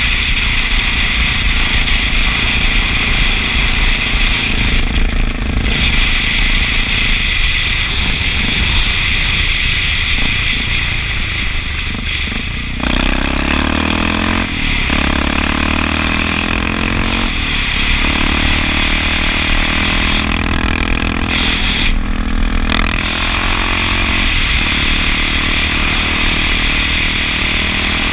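Honda XR650L single-cylinder four-stroke engine running under way on the road, with a steady rush of noise over the helmet camera. A little before halfway the sound dips briefly, then the engine note rises and drops several times through the second half.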